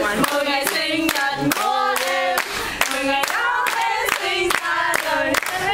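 A group of young women singing a clapping-game chant together while clapping their hands in a steady rhythm, about two to three claps a second.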